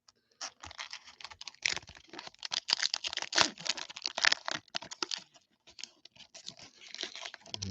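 Hands tearing open and handling a baseball card pack: rapid, irregular crinkling and crackling of the pack wrapper, busiest in the middle.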